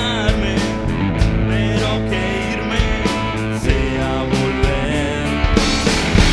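Rock song played by a band: electric guitar over bass and a steady drum beat.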